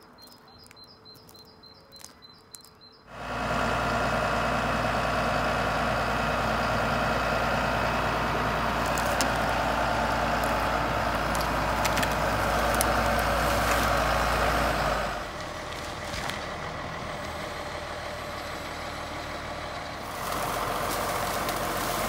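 A heavy engine comes in suddenly about three seconds in and runs steadily, dips in level for a few seconds past the middle, then comes back up. Before it, a bird chirps a quick run of high notes.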